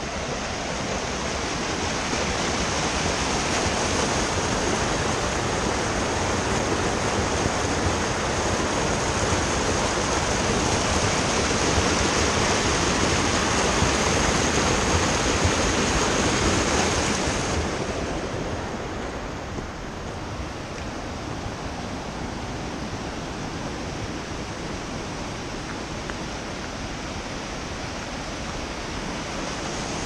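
Creek water rushing through narrow channels carved in bedrock, a steady roar of small cascades and white water. It turns a little quieter and duller about seventeen seconds in.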